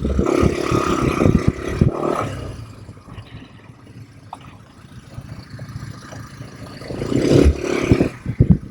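ATV engine running under throttle in two surges, one at the start and one about seven seconds in, with dropping engine noise in between and a scatter of knocks and rattles from the ride.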